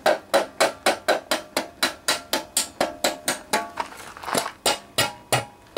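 Hammer rapping rapidly on the stamped sheet-metal valve cover of a Honda GC160 engine, about five sharp taps a second with a short metallic ring after each, pausing briefly near the end. The blows are breaking loose a cover stuck down with silicone.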